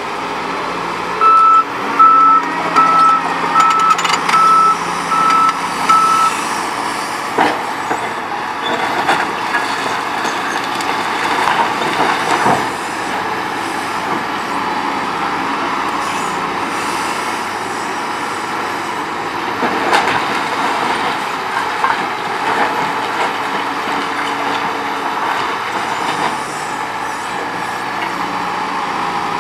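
Heavy demolition excavator at work: its engine runs steadily while a motion alarm gives a string of about seven short, high, even beeps over the first five seconds. Knocks and crunches of broken masonry follow.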